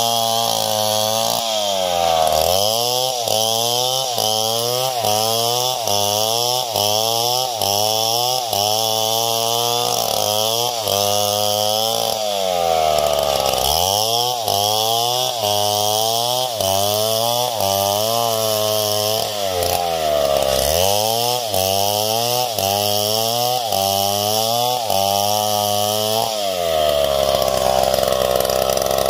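Stihl MS070 two-stroke chainsaw ripping lengthwise through a coconut log, running loud and continuously. Its engine pitch rises and dips over and over as the chain loads up in the cut and recovers, with four deeper dips: about two seconds in, around thirteen and twenty seconds in, and near the end.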